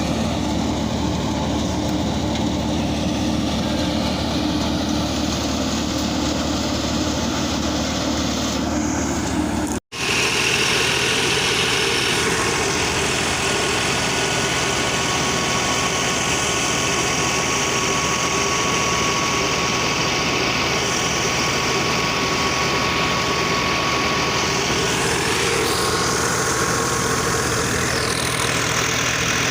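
Engine of a tractor-driven wheat thresher running steadily, with a constant mechanical hum. The sound breaks off for an instant about ten seconds in, then carries on.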